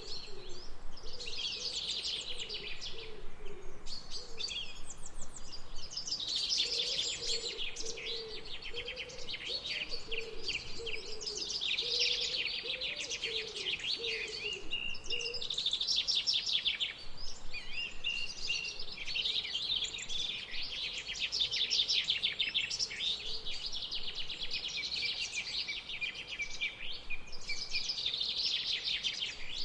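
Birds singing and chirping continuously in rapid, overlapping trills and chirps, with a fainter lower warbling line underneath.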